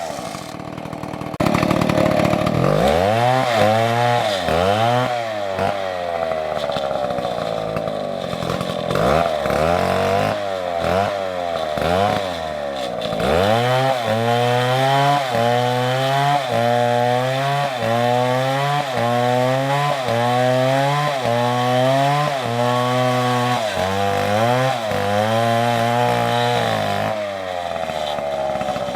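Two-stroke Stihl MS720 chainsaw cutting through a tree trunk. The engine pitch drops again and again as the chain bites under load and climbs back, about once a second later on, after a quieter first second or so.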